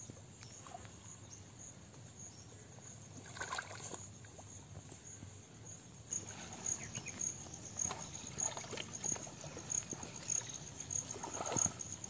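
Insects chirping in a high, even pulse of about three a second, stronger from about halfway in, with shallow muddy water sloshing and splashing now and then as people wade and grope in it.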